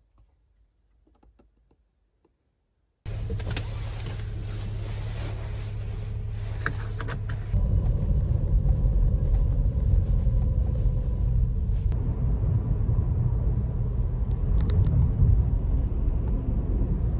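Low, steady rumble of a vehicle in motion. It starts suddenly about three seconds in and gets louder about four seconds later.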